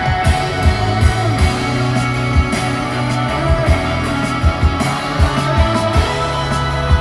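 Pop song playing through the car's stock stereo speakers inside the cabin: an instrumental passage with a steady beat and held chords, no singing.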